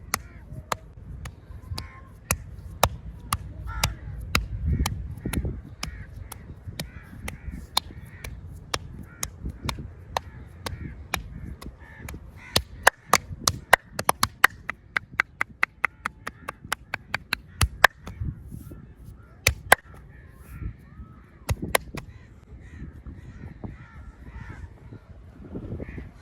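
Hands slapping and chopping on a bare back during a fast percussive massage: scattered sharp smacks, then a quick run of strikes in the middle, then a few more near the end. Crows caw in the background.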